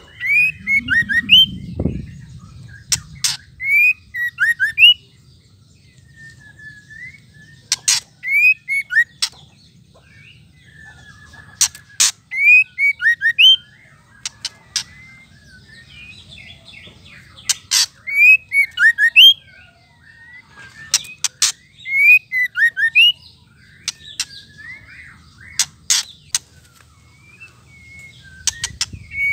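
White-rumped shama giving its rattling 'ketrek' calls: sharp clicks mixed with short whistled notes that glide up and down, in bursts every four or five seconds.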